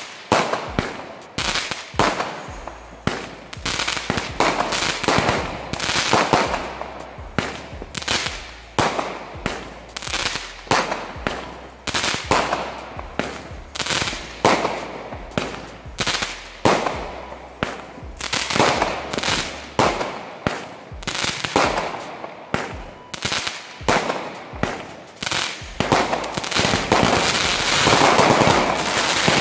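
Firework compound cake (Aldi 'Dreamcatcher') firing a rapid run of shots, about two bangs a second, each with a short echo. Near the end the shots get louder and denser as coloured bursts break.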